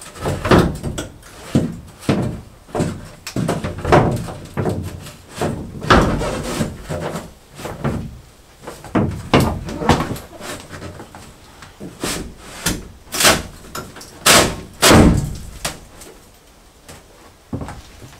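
Shower wall panel knocking and thumping irregularly as it is pushed and rocks on the shower base, the loudest knocks a few seconds before the end. It rocks because a hump along the back of the base lifts the wall's corners and leaves a gap under them.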